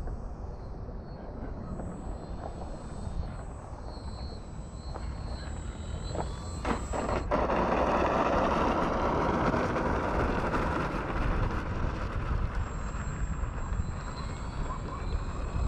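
High whine of a small RC plane's brushless electric motor and three-blade propeller, rising and falling in pitch, over wind on the microphone. About seven seconds in the sound cuts to a louder, steady rushing noise as the plane moves along the runway.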